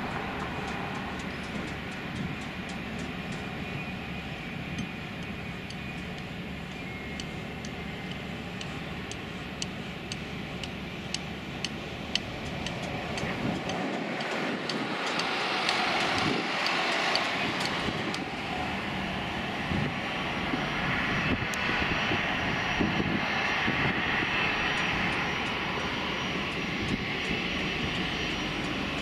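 Jet aircraft engines heard from beside the runway: a steady rushing jet noise as a twin-engined business jet lands and rolls out, swelling louder after about halfway, then an easyJet Airbus A320-family airliner approaching near the end.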